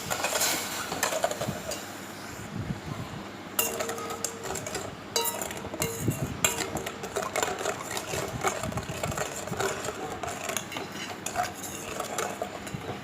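A spoon stirring sugar and water in a metal vessel, with repeated clinks and scrapes of metal on metal.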